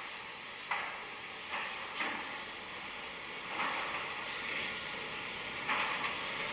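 LiftMaster Logic 2 garage door opener running a door up, a steady mechanical noise with several short louder bursts every second or so. It is fairly quiet for the door, though one squeak is still unfixed.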